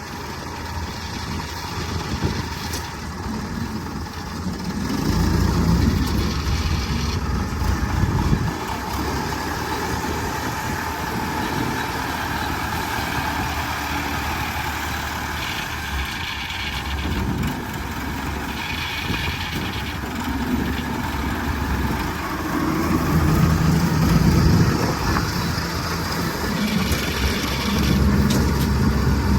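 An engine running steadily near idle, growing louder a few times as it picks up speed.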